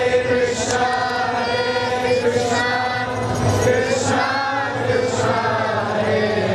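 Devotional kirtan chanting by a group of voices, the melody rising and falling in long sung phrases.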